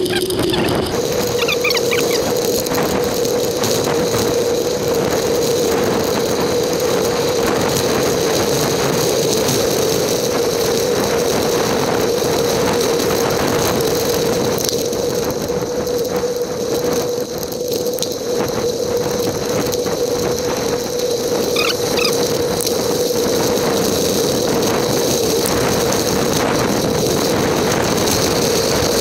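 Sped-up riding noise from a bicycle-mounted GoPro: wind and tyre noise on a dirt road turned into a loud, steady hiss with a constant high whine.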